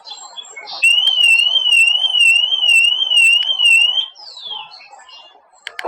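Car alarm siren: an electronic tone warbling quickly up and down, a couple of times a second, for about three seconds, then stopping.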